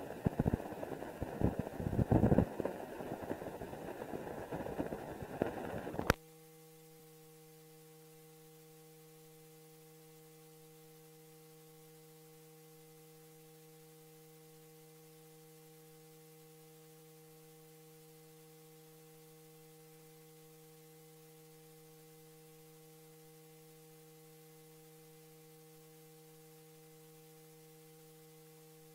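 Crackling, popping noise of an old optical film soundtrack on blank leader, which cuts off with a sharp click about six seconds in. A faint, steady electrical hum follows and runs on unchanged.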